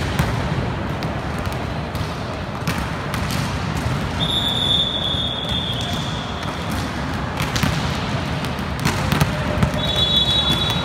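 Volleyballs being hit and bouncing in an echoing indoor sports hall, scattered sharp smacks over a steady crowd-and-hall din. A long, steady high whistle sounds about four seconds in for two to three seconds, and a second one starts near the end.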